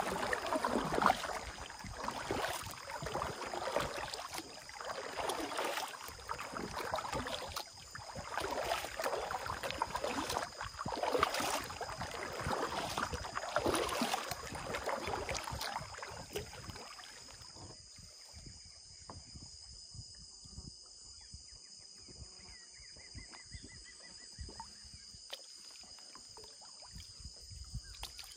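Kayak paddle strokes splashing through the water, about one every second and a half, stopping about two-thirds of the way through. After that only a faint, steady high-pitched drone is left.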